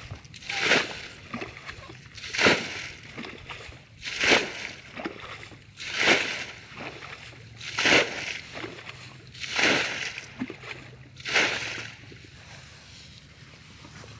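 Water thrown in repeated splashes onto a field mouse burrow to flood it, about one splash every two seconds, seven in all, stopping shortly before the end.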